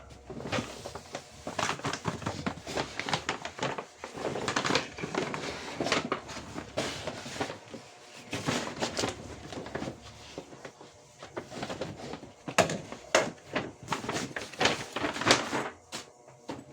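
Packaging being handled and opened: irregular rustling, crinkling and crackling, with scattered sharper clicks and scrapes that come in busy spells and thin out for a moment now and then.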